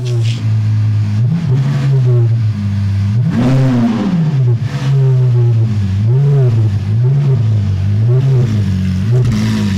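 Lamborghini Aventador's V12 engine idling, revved once about three and a half seconds in, then blipped in a quick series of short revs, each rising and falling back to idle.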